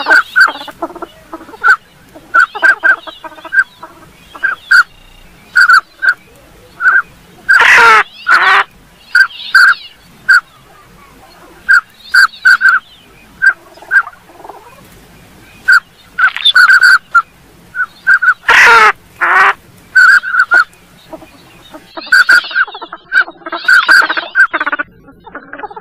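Northern pintail calls: short whistling notes repeated in irregular runs, broken twice by a longer, louder harsh call that falls in pitch.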